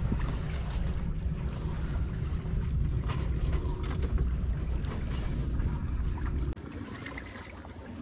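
Wind on the microphone over the wash of water along a sailing yacht's hull. About six and a half seconds in, the wind noise drops away suddenly, leaving a quieter wash of water.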